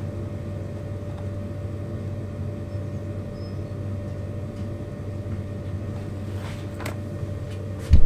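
A steady low electrical or mechanical hum, like a small motor or fan running, with a couple of faint clicks about six and a half seconds in and a sharp thump right at the end.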